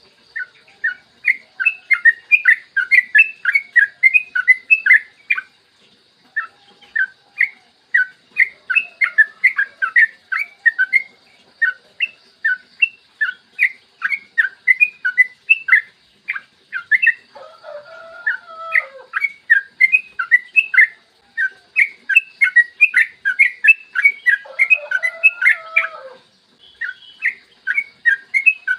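Trucukan (yellow-vented bulbul) singing in rapid runs of short, high chirping notes, in bursts of a few seconds with short pauses. Twice, a lower, longer warbling phrase sounds under the chirping.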